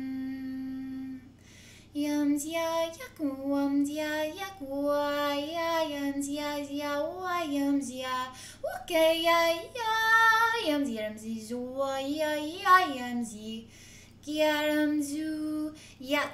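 A woman's voice chanting 'light language', wordless improvised sung syllables. A held humming tone breaks off about a second in, then phrases slide up and down in pitch, with a short pause near the end before the singing resumes.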